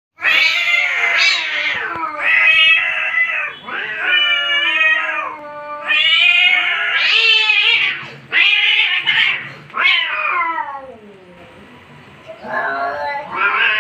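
Two domestic cats in an angry standoff, caterwauling: a string of long, drawn-out yowls that waver up and down in pitch. There is a short lull about eleven seconds in before the yowling starts again.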